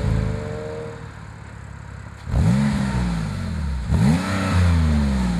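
Porsche 997.2 Turbo's 3.8-litre twin-turbo flat-six through a Fabspeed 70 mm Maxflo exhaust: the revs fall away, then two quick throttle blips, each rising sharply and dropping back.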